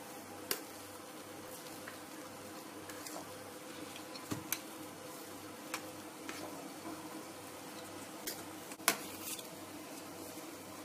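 Faint scattered clicks and taps of a knife against a metal springform cake tin while whipped cream is spread over the cake, over a low steady hum.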